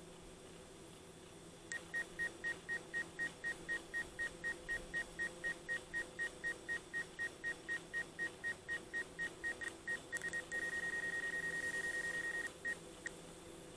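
Electronic warning beeper of a DJI drone's remote controller: a single high tone beeping rapidly, about four beeps a second for about eight seconds, then held as one steady tone for about two seconds, ending with two short beeps.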